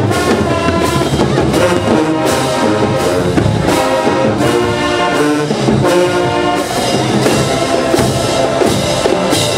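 HBCU marching band playing loudly: sousaphones, trombones and trumpets in full brass chords over snare and bass drums, with repeated cymbal crashes.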